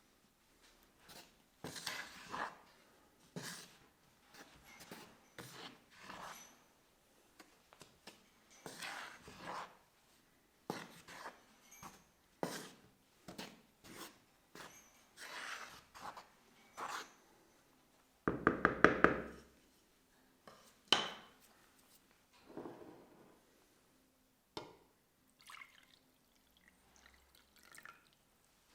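Kitchen prep sounds: a string of short scrapes, knocks and liquid sounds. A louder fast rattle comes about two-thirds through, and a sharp knock follows soon after.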